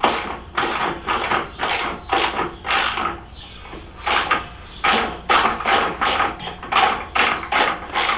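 Hand ratchet wrench clicking in quick repeated strokes, about two to three a second, while turning a 6 mm hex-socket bolt set with red Loctite. There is a pause of about a second near the middle.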